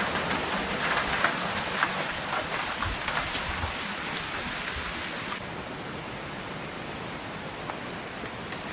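Heavy rain falling on rainforest foliage, a dense patter of drops. About five seconds in it changes abruptly to a softer, even hiss.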